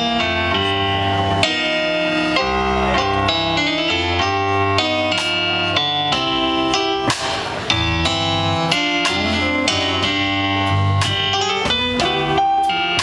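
Live blues band playing: electric guitar, electric bass guitar, drum kit and electric keyboard together.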